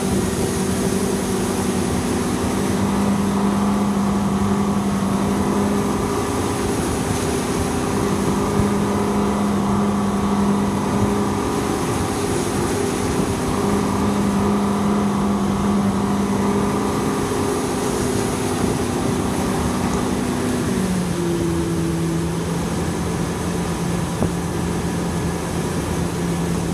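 Motorboat engine running steadily at speed while towing a water-skier, over the rushing hiss of the wake. About three-quarters of the way through, the engine note drops to a lower pitch and holds there.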